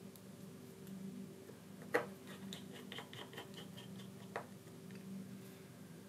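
Faint handling of a small screwdriver and tiny screws: a sharp click about two seconds in, then a quick run of light ticks, and another click a couple of seconds later, over a steady low hum.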